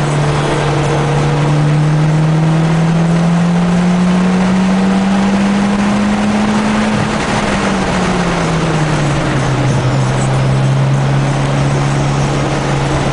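Mitsubishi Lancer Evolution X's turbocharged 2.0-litre four-cylinder engine heard from inside the cabin, accelerating hard along a straight: its note climbs steadily for about seven seconds without a gear change. It then falls away as the car slows for a corner and settles to a steady lower note, with wind and road noise throughout.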